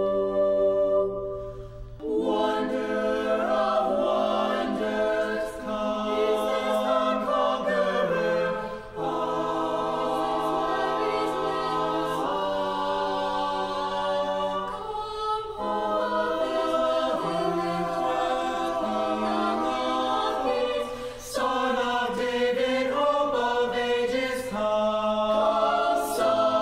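A choir singing a slow choral piece, long held chords that change every few seconds.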